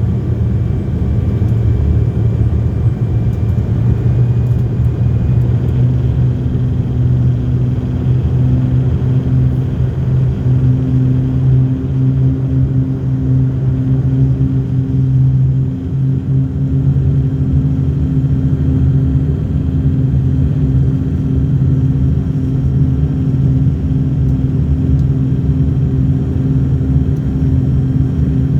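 Airliner's engines running during landing: a loud, steady low drone with a few steady hum tones, and a new tone joining about a quarter of the way in.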